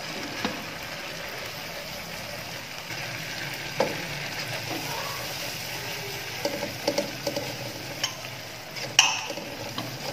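Onion-garlic masala and ground spices frying in oil in a non-stick wok, a steady sizzle. A wooden spoon stirs and scrapes through it, knocking against the pan several times, loudest about nine seconds in.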